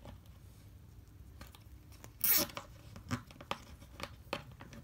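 A nylon zip tie pulled tight through its ratchet: one short rasping zip about two seconds in, followed by a few light clicks and taps of handling.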